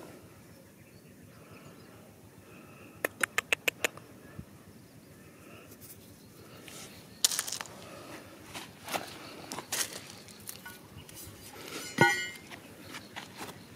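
Stones and crumbly clay rubble handled by hand: scattered crunches and knocks. A quick run of about six sharp ticks comes a few seconds in, and a single sharp clink with a short ring comes near the end.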